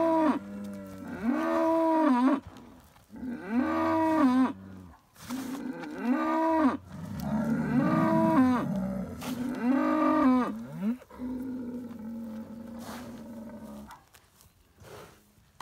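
Jersey bull bellowing in short calls that rise and fall in pitch, about one a second, then a lower, steadier moan that fades out near the end.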